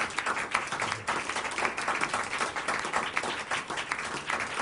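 Applause: many hands clapping in a dense, steady patter.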